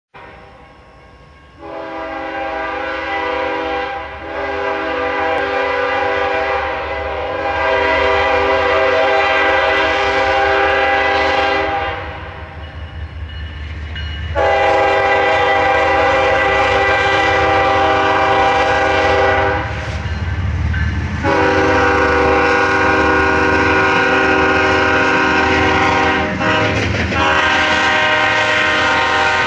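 A diesel locomotive's air horn sounds four long chords of several notes at once, the first about ten seconds long and the next ones about five, under the low rumble of an approaching double-stack intermodal freight train. The blasts are a grade-crossing warning.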